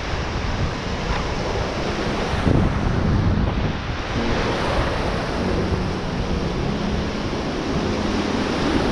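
Waves breaking and whitewater washing close around, a steady surf noise, with wind buffeting the microphone.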